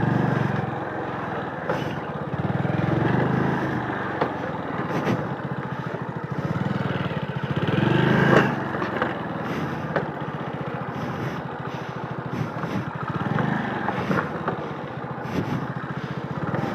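Motorcycle engine running at low speed on a rough, stony dirt trail, revs swelling and easing several times, with scattered knocks and clatter from the bike over the stones.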